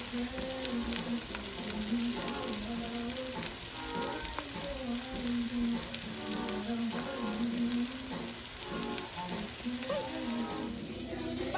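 Steak frying in a hot pan: a steady sizzle with fine crackles, over background music.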